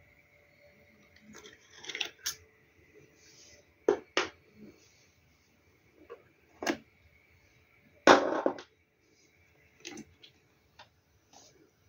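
Handling noise from a plastic portable hand-crank generator power box: a string of clicks and knocks as it is moved and a plug is worked at the round socket on its side. The loudest knock comes about eight seconds in. A faint steady high tone runs underneath.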